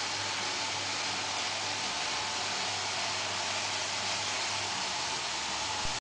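iRobot Roomba robot vacuum running as it cleans, a steady, even hiss from its vacuum motor and brushes.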